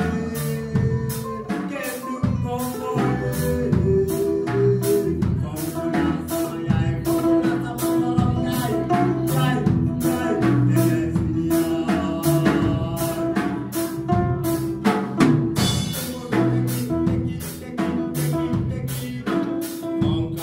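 Live band playing: a Pearl drum kit keeping a steady beat under electric bass and guitar, with a man singing into a microphone.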